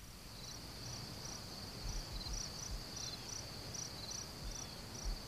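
Crickets chirping: a steady high trill with regular chirps over it, about two or three a second. A few dull low thumps come through, the loudest near the end.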